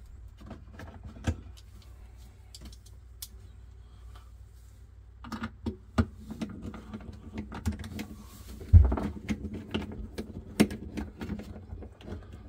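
Small clicks and knocks of a screw and hand screwdriver being worked against a refrigerator's plastic fan cover, mostly in the second half, with one louder thump about nine seconds in.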